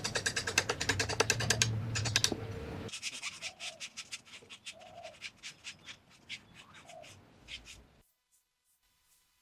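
Rapid, evenly repeated scraping strokes of a hand tool on wood, about five a second, loud at first, then quieter and more spaced out after about three seconds, stopping shortly before the end.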